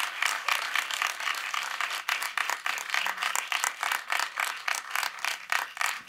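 Small audience applauding, a dense patter of separate hand claps.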